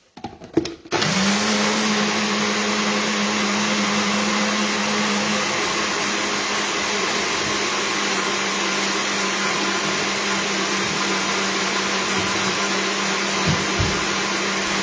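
Compact single-serve blender, its cup upturned on the motor base, running steadily and blending aquafaba (chickpea-water) mayonnaise. A few clicks come as the cup is seated and twisted onto the base, then the motor starts about a second in.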